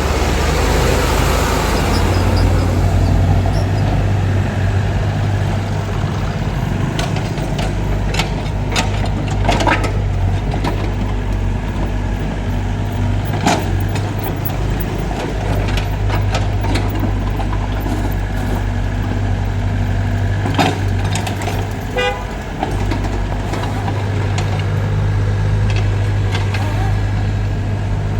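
Heavy diesel engine of earth-moving machinery running steadily, with a hiss of air in the first two seconds and scattered metallic clanks and knocks.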